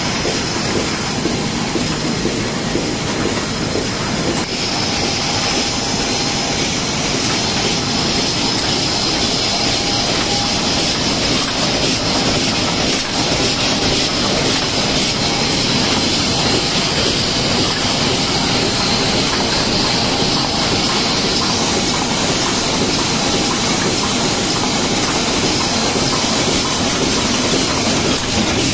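High-speed automatic flat-bed die cutting machine running at production speed: a steady, fast mechanical clatter with a hiss over it.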